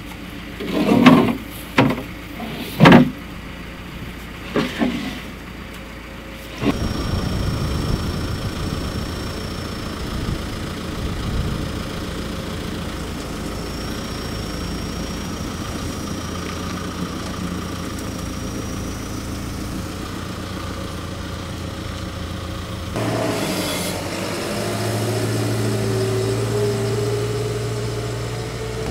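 Engine of the machine moving sawlogs running, with several loud knocks in the first few seconds. About seven seconds in the engine gets louder and holds steady under load, and near the end its note rises.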